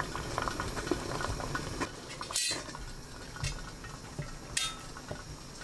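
Covered stainless steel steamer pot on high heat giving light metallic clinks and small rattles, with two brighter clinks about two and a half and four and a half seconds in.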